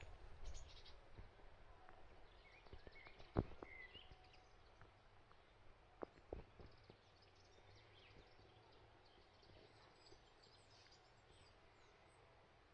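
Near silence: faint outdoor background with a few soft clicks, the loudest about three and a half seconds in, and a few faint chirps.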